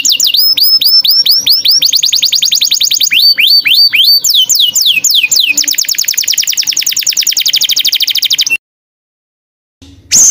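Small songbird singing a very fast, high trill of repeated notes, broken twice by runs of slower sweeping whistled notes. The song cuts off suddenly about eight and a half seconds in and starts again just before the end.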